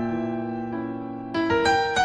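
Slow solo piano music: a held chord ringing, then a few new notes struck about a second and a half in.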